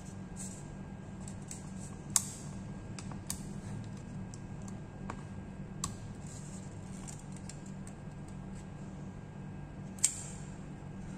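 Scattered sharp plastic clicks and taps from a laptop being taken apart by hand, with two loud snaps, one about two seconds in and one near the end, over a steady low hum.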